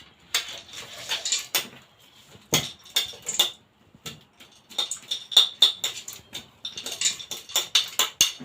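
Dishes and bowls being handled and set down, a busy run of short clinks and knocks.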